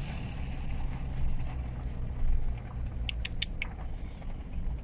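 Tour boat's engine running with a steady low rumble. Four short, sharp high-pitched squeaks come about three seconds in.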